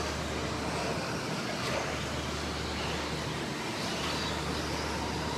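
Radio-controlled stock-class race trucks running laps on a dirt track: a steady wash of motor and tyre noise, with faint high motor whines rising and falling.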